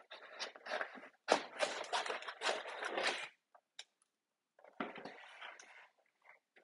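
Cardboard packaging being handled as the card insert is lifted out of a camera box, rustling and scraping. It comes in two bouts: a longer, louder one, then after about a second's pause a shorter one.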